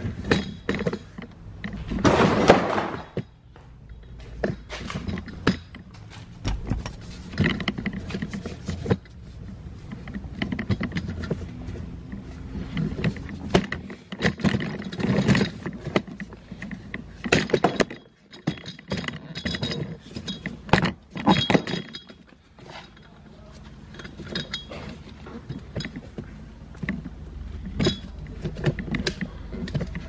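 Metal hand tools and car parts being handled: irregular clinks, clatters and thunks, loudest about two seconds in, over a low steady hum.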